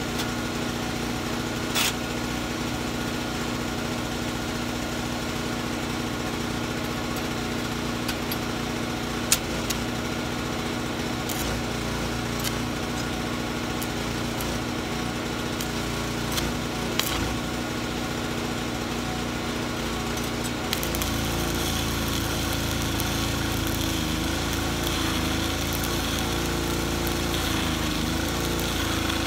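A small engine runs steadily with a few clinks and taps. About 21 s in, a stick-welding arc with 7018 rod strikes and keeps crackling and hissing, and the engine's pitch wavers as it takes the load.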